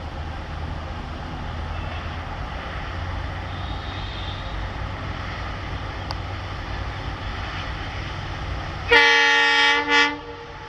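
WDP-4D diesel locomotive's EMD two-stroke engine running with a low, steady rumble as it approaches hauling a passenger train, then its air horn sounding twice near the end: a blast of just under a second and a short one.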